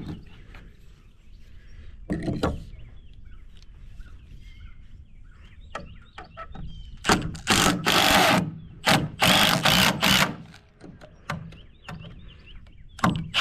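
Cordless impact driver driving screws into framing lumber in a run of short, loud bursts about halfway through, with a dull knock about two seconds in. Wind rumbles on the microphone underneath.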